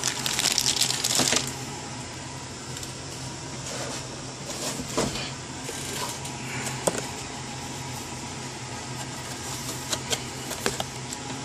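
Plastic toy packaging crinkling and rustling as it is handled during the first second and a half, then a low steady hum with a few light clicks and taps as packaged figures are moved about.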